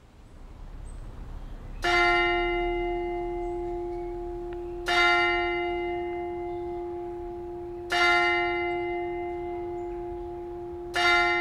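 A single church bell tolling four times, a stroke about every three seconds, each stroke ringing on and fading slowly into the next.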